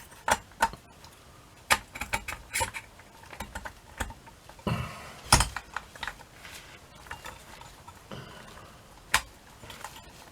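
Small metal clock parts and washers clicking and tapping against each other as they are handled and fitted, in an irregular run of light clicks. The loudest knock comes about five seconds in, with another sharp one near the end.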